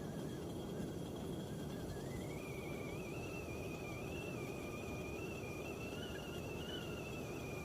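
Kettle starting to whistle: a thin, wavering high tone that comes in about two seconds in, with a fainter lower tone beneath it, over a steady low rushing noise.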